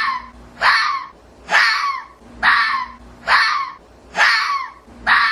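Fox giving a harsh, raspy call over and over, about one call a second, each call dipping in pitch at its end.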